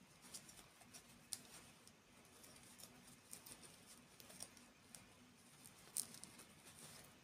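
Faint, irregular clicks and soft crackles of small objects being handled close to the microphone, with a few sharper single ticks about a second in and near the end.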